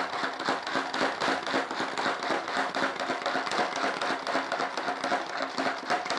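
Hand-press vegetable chopper worked by repeated pushes on its plunger, its three spinning blades chopping onion in the plastic bowl: a continuous run of rapid clicking and rattling.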